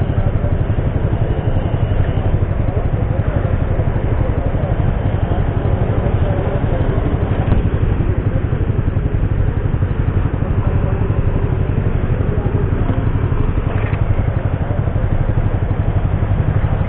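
Motor scooter engine idling steadily at a standstill, with the idle of other motorcycles and city traffic around it.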